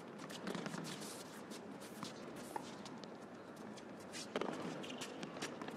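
Tennis rally on an indoor hard court: a series of sharp racket-on-ball hits going back and forth, with the players' footsteps on the court between them.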